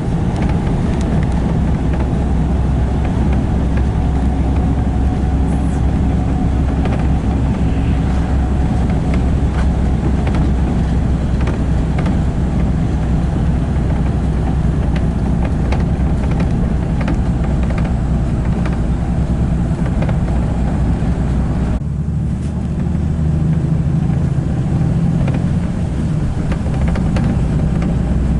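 Steady low rumble of a moving vehicle, heard from inside, with a brief lull about three quarters of the way through.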